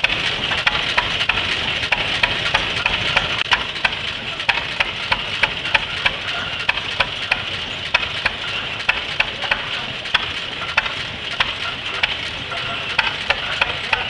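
The half-scale OTTO tractor's 6 hp Fairbanks Morse throttle-governed engine runs steadily under the belt, giving a regular sharp beat about three times a second. Behind it is a continuous hissing whir from the running belt drive.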